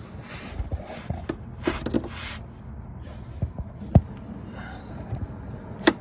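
Handling rustle and plastic clicks as an LED turn-signal bulb is worked into its socket. There are two sharp clicks, about four seconds in and just before the end.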